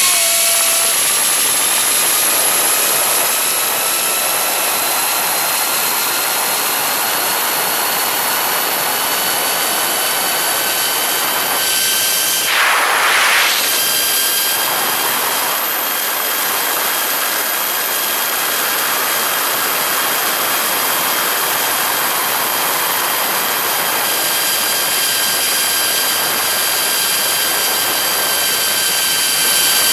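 Zip line trolley running fast along the steel cable: a steady whine from its pulleys, climbing in pitch over the first few seconds and then holding, under a heavy rush of wind. The rush surges louder about twelve seconds in.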